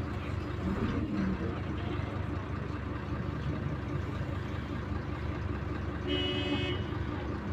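Güleryüz Cobra GD-272 city bus running with a steady low engine and road drone. A vehicle horn gives one short toot about six seconds in.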